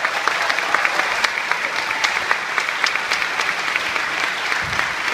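Audience applauding: dense, steady clapping from a seated crowd in an auditorium.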